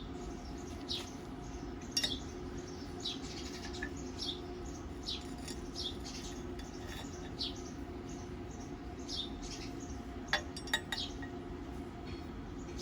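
A small bird chirping over and over, each call a short falling note, over a steady low hum. A few sharp clicks come in, one about two seconds in and three close together near the end.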